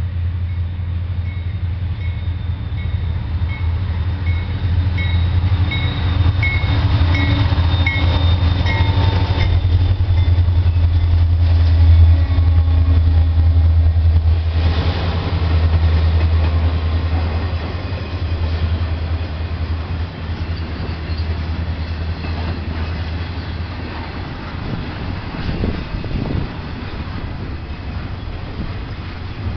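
Diesel-hauled mixed freight train passing close by. The locomotives' engines drone loudest in the first half. The trailing flatcars and intermodal cars then roll past with a steady clickety-clack of wheels on rail joints.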